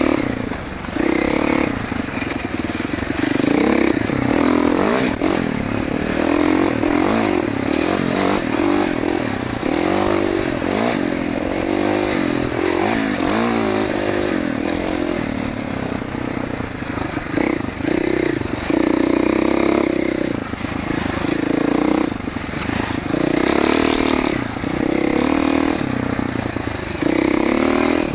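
2021 Gas Gas MC450F's 450 cc four-stroke single-cylinder engine, heard from the rider's seat, revving up and falling back again and again as the bike is ridden along a sandy trail, with brief drops off the throttle.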